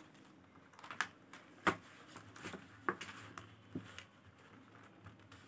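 Light, irregular clicking of faceted beads knocking against each other as a beaded bag is handled and the thread is worked through it. There are about a dozen scattered ticks, the loudest a little under two seconds in.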